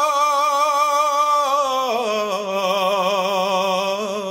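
A solo voice singing a long drawn-out note with vibrato in a Bengali Islamic song (gojol), the melisma of the refrain 'he amar Rob' ('O my Lord'). About two seconds in it slides down to a lower note and holds it. No instruments are heard.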